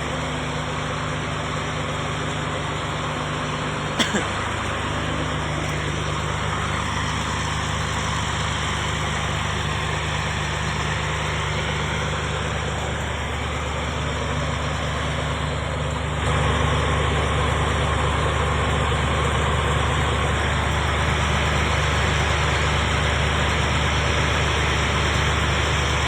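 Diesel engine of a drainage water pump running steadily with a low hum. There is a sharp click about four seconds in, and the engine gets louder from about two-thirds of the way through.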